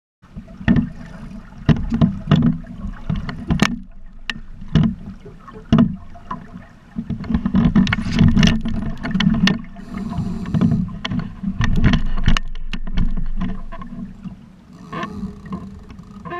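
Small sailboat under way, recorded by a GoPro on board: water slapping and rushing against the hull and wind rumbling on the camera's microphone, with frequent irregular knocks and thumps.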